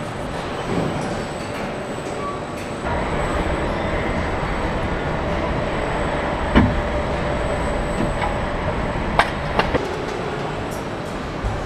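Car body assembly line running: steady machinery noise, with a hum that comes in about three seconds in and scattered metallic clanks and clicks from the robots and fixtures. The loudest clank falls a little past the middle.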